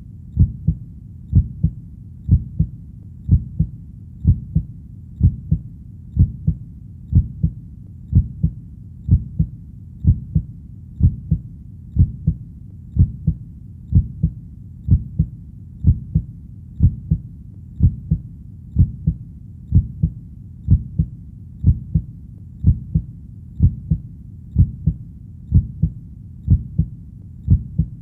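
Steady heartbeat, about one beat a second, each beat a low double thump.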